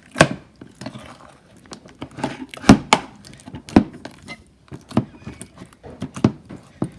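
Stiff, tough slime being stirred in a bowl: a mixing utensil knocking and clacking against the bowl in irregular sharp clicks, the loudest a little under three seconds in.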